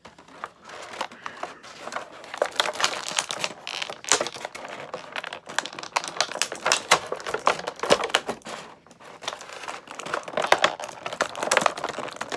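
Clear plastic toy packaging crinkling and crackling irregularly as it is handled and pulled apart by hand, a little quieter for a moment just past the middle.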